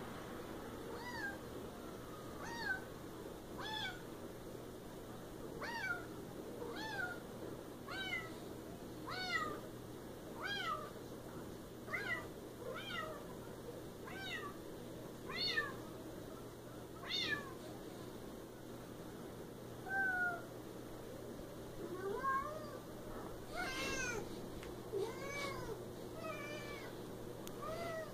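Siamese cat meowing over and over, short calls that rise and fall in pitch, about one a second, with a pause of a few seconds a little past the middle.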